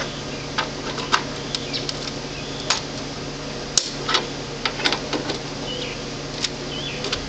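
Irregular light clicks and taps of a hand tool working the metal screw terminals of an electrical breaker panel as they are loosened, over a steady low hum.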